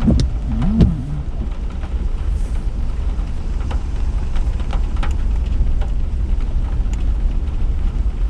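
Steady low rumble of a vehicle driving slowly, heard from inside the cab, with scattered light ticks and taps.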